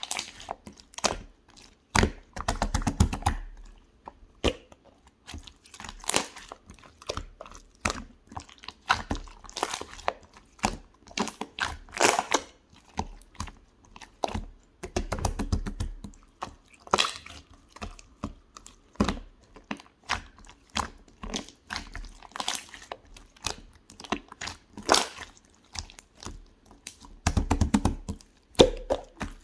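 Clear blue slime being squeezed and pressed by hand, giving irregular wet clicks and crackling air-bubble pops. It breaks into denser runs of rapid popping about two seconds in, around the middle and near the end.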